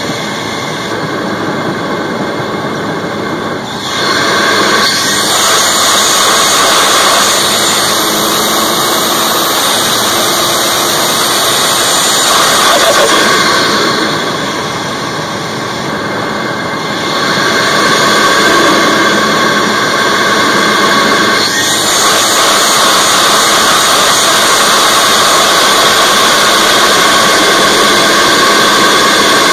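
Intake and turbo noise of a MK3 Ford Focus ST's 2.0-litre turbocharged EcoBoost four-cylinder, heard from inside the air box: a loud rush of air through the filter that surges and falls away as the engine load changes. Quieter, duller lulls come near the start and about halfway, each followed by a swell back to full rush.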